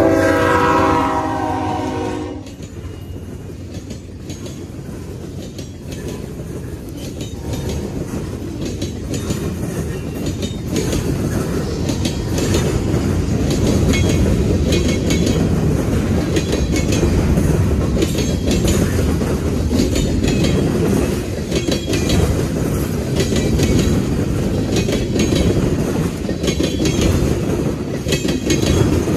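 Diesel freight locomotive's horn sounding for about the first two seconds, cutting off as the engine goes by. Then the freight cars roll past with a steady low rumble and the clickety-clack of steel wheels over the rail joints, growing louder.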